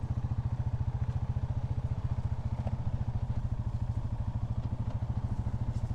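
Polaris Sportsman 570 ATV's single-cylinder engine running at a steady low speed with a regular pulsing beat as the ATV goes down a slope, heard from the rider's seat.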